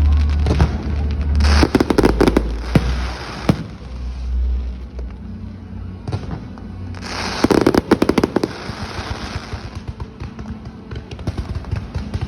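Two runs of rapid firecracker bangs, the first starting about a second and a half in and lasting about two seconds, the second about seven seconds in, with scattered pops between. Music with a steady bass plays underneath.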